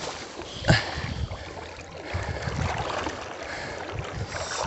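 Shallow river water splashing and rippling as a person wades through it, with wind buffeting the microphone and a sharp thump about a second in.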